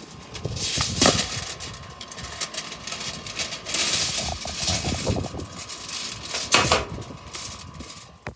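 Metal tongs clanking on a barbecue grill as pork chops are lifted off, over a steady hiss and crackle, with a sharp clank about a second in and another near the end. The sound cuts off suddenly at the end.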